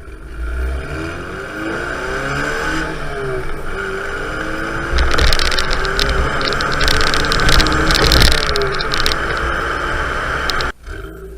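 Fiat Punto 1.2 8-valve four-cylinder engine on its stock exhaust, revving with its pitch rising and falling. It gets louder about halfway through, then cuts off abruptly near the end.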